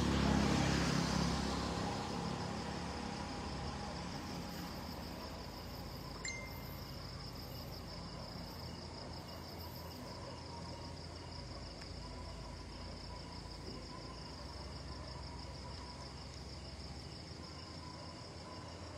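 A steady, high-pitched insect trill, cricket-like, over a faint low background hum, with one small click about six seconds in.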